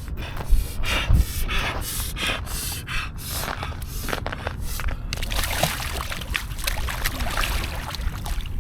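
A person breathing hard and gasping in quick, short breaths, about two a second, as the body reacts to ice-cold water. After about five seconds the breaths give way to a steady hiss.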